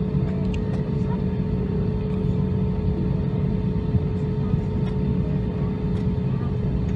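Airbus A320 cabin noise while taxiing on one engine: a steady low rumble and hum from the running engine, with a thin steady whine over it.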